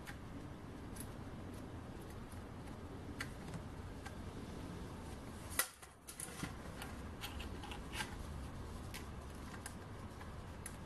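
Faint handling noise of small metal parts: scattered light clicks and taps as tiny washers and a screw are fitted into a Stirling engine kit's base plate, with one sharper click about halfway through.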